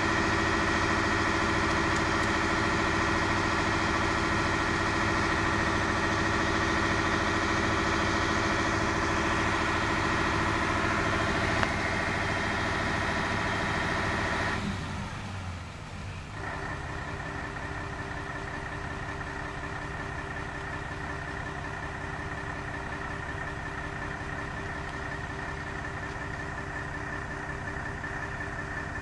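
Fire brigade aerial ladder truck's engine running steadily with a steady high whine over it. About fifteen seconds in it drops to a quieter, lower running sound and keeps on steadily.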